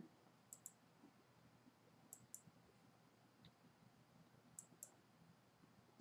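Faint computer mouse clicks, three quick pairs, over near silence.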